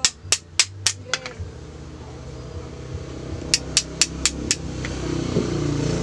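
A small hammer peening the end of a wire lock pin set through a PVC scabbard, flattening the tip so it spreads like a rivet head: quick sharp metal taps about four a second, five in a burst, a pause, then five more. A motor vehicle's engine rises in the background near the end.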